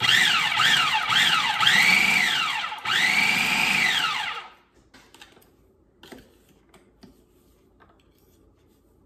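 Food processor pulsed several times: three quick short pulses, then two longer runs, the motor whine rising as it spins up and falling as it coasts down each time. It is cutting cold butter into flour for pie dough.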